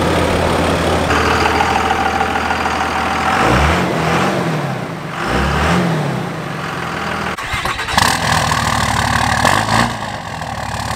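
Diesel pickup truck engine idling, then revved twice, the pitch rising and falling each time. About seven seconds in the sound changes abruptly; the engine keeps running, with another short rev near the end.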